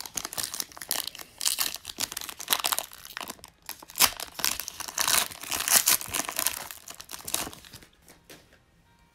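Foil trading-card pack wrapper being torn open and crinkled by hand: a dense crackling of foil for several seconds, loudest about four and six seconds in, dying away near the end.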